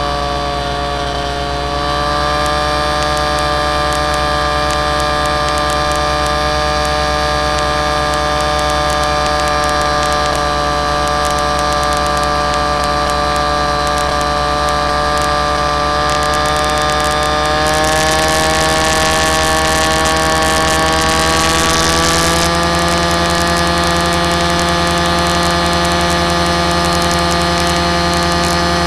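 Motor of the aircraft carrying the camera, running steadily as a whine of several tones. Its pitch steps up slightly about 2 seconds in, again about 18 seconds in, and once more about 22 seconds in.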